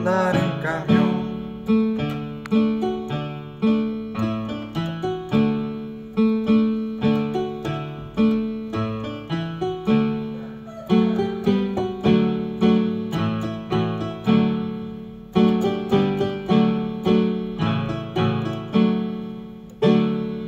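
Electronic keyboard playing an instrumental passage: chords with a bass line struck on a steady beat, each note dying away after it is struck.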